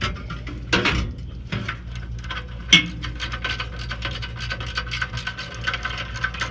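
Plastic zip ties being pulled tight through their locking heads: a fast ratcheting tick, with a few sharper knocks and clicks before it settles into a dense run of ticks.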